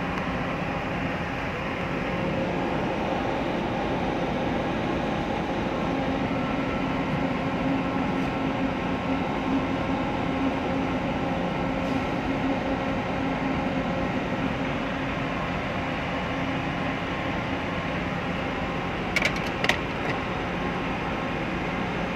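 Steady mechanical drone of idling engines and machinery, with a low hum that swells in the middle and a few short clicks near the end.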